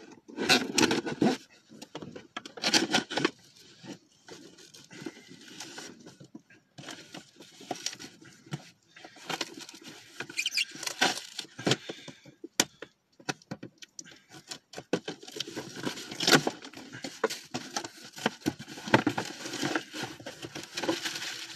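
Cardboard shipping box being opened and unpacked by hand: irregular rustling, scraping and clicking handling noises.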